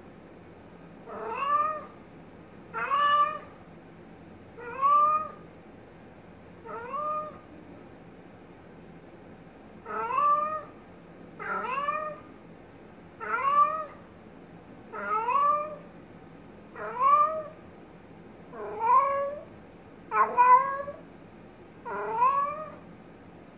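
Domestic cat meowing over and over: about a dozen short meows, each rising then falling in pitch, one every one and a half to two seconds, with a longer pause after the fourth.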